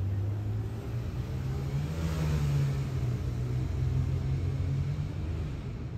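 A car's engine rumbling as it drives past close by. The engine pitch lifts slightly and the sound swells about two seconds in, then eases off.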